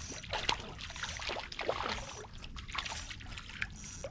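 Light, irregular splashing and trickling of water beside a small boat as a hooked crappie is drawn up toward the surface.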